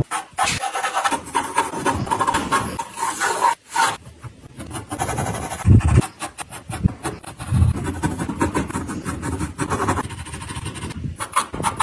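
Pencil scratching on drawing paper in quick, irregular sketching strokes.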